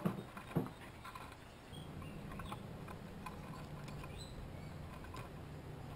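Chipmunks shucking corn: small scattered clicks and ticks, with two sharper knocks in the first second. A low steady hum comes in about two seconds in.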